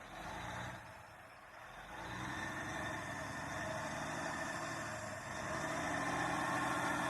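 Milk tanker truck's diesel engine running under load while its drive wheels spin in the snow. It gets louder about two seconds in and again near the end.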